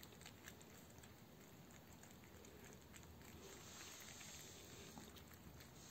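Faint small clicks and ticks of several cats lapping and chewing egg from a plate.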